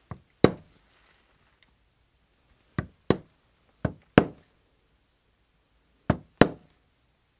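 Poly maul striking a metal camouflage stamp into leather laid on a stone slab. There are four pairs of sharp knocks, each a light tap followed by a harder blow, the pairs a second or two apart.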